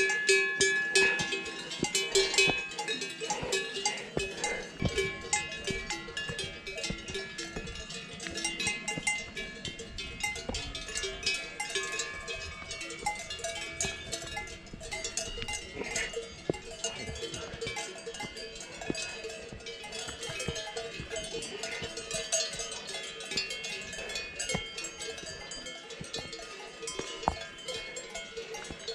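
Many cowbells clanking irregularly at several different pitches, as from a herd of grazing cattle on an alpine pasture; loudest in the first few seconds.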